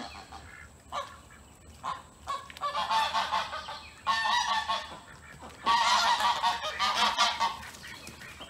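Geese honking: a few short single calls, then three loud bouts of repeated honks, the longest about two seconds, starting about halfway through.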